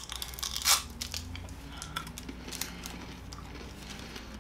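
Crunching and chewing of a Chico Stick, a crunchy peanut butter and toasted coconut candy, with one loud crunch just under a second in and smaller crunches after.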